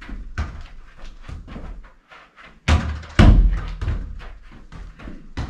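Football being kicked and knocking off the walls of a small room, two loud knocks about half a second apart near the middle, amid lighter ball touches and shoe scuffs on carpet.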